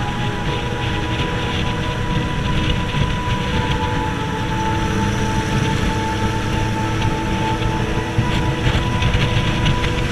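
Suzuki sport motorcycle cruising at highway speed: steady engine running under heavy wind rush.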